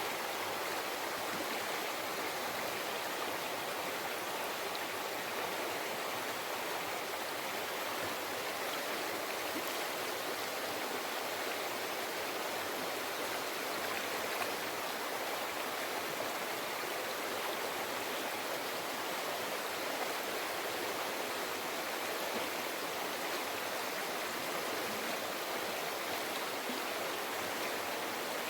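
A shallow river flowing steadily over rocks, a continuous even rush and babble of water.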